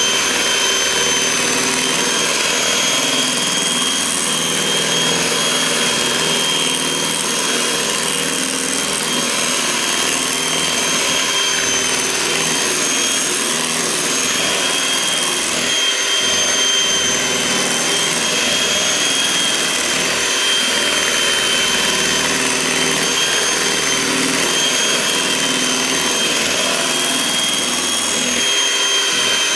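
Electric kitchen appliance motor running steadily with an even, high whine.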